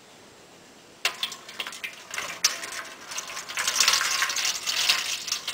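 Water poured from a drinking glass into a shallow tin pan, splashing on the metal. It starts about a second in, grows heavier and louder toward the end, then stops.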